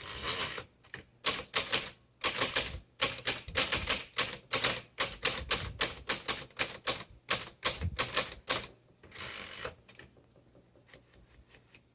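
1938 Royal Model O manual typewriter being typed on: a steady run of sharp keystroke clacks, about two to three a second, for about seven seconds, followed by a short rasping sound near the end.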